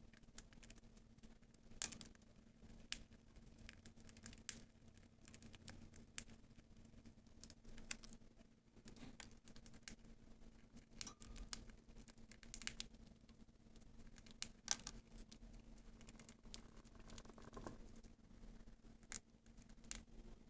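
Budgerigars husking seeds with their beaks: faint, irregular little cracks and clicks, a few of them sharper, over a steady low hum.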